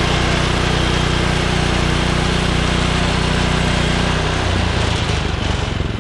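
The Woodland Mills HM126 portable bandsaw mill's small gas engine running steadily. About four and a half seconds in, its note changes and it slows.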